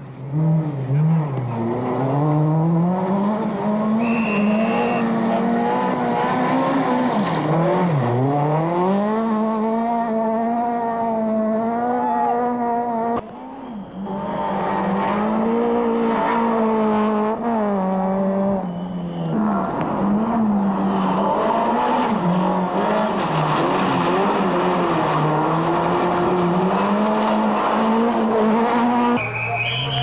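Skoda Felicia Kit Car rally engine revving hard at close range, its pitch climbing and falling again and again as the driver works up and down the gears and lifts for corners. Tyres hiss and spray on the wet road through parts of it.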